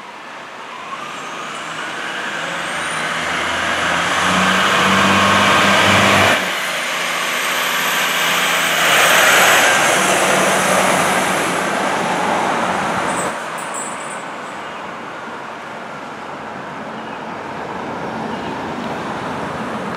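2007 Spartan Gladiator/Smeal fire engine's diesel engine pulling hard as the truck passes close by, growing loud and then fading as it drives away. A faint siren tone rises and falls slowly above it.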